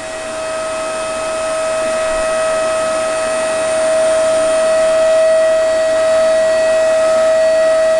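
Vacuum cleaner running with a steady, high-pitched motor whine.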